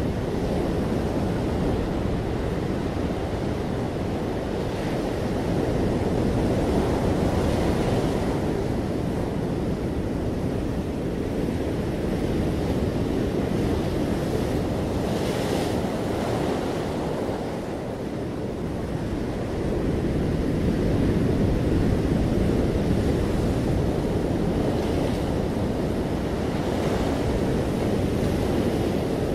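Ocean surf breaking and washing up over sand and around rocks: a continuous rumble and hiss that swells and eases with each wave, dipping briefly about two-thirds of the way through.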